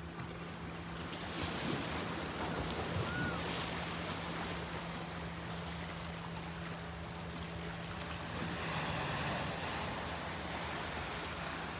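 Small sea waves washing and lapping over a rocky shore, with a steady low hum underneath that fades about two-thirds of the way through.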